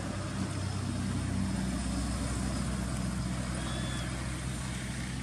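A steady, low engine hum, like a motor vehicle idling, runs without change. A faint short high-pitched call sounds once about four seconds in.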